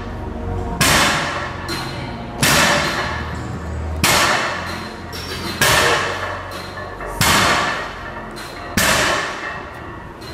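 Background music with a heavy hit about every second and a half, each fading out slowly, over low sustained bass notes.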